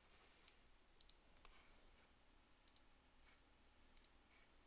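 Near silence: room tone with a few faint, short clicks scattered irregularly through it.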